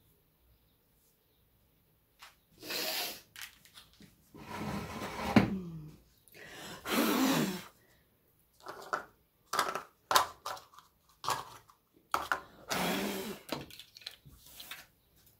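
Things being handled on a table: a run of scraping and rustling noises, each up to about a second long, with short clicks between them.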